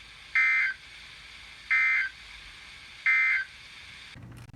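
Emergency Alert System data tones over a radio broadcast: three short identical warbling bursts about 1.3 s apart, the end-of-message code that closes an emergency alert, here a flood warning.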